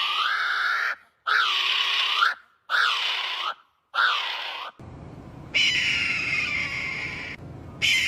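Bird calls: a long harsh call, then three shorter calls about a second apart, each rising and falling in pitch. After a change of background, longer calls falling in pitch follow.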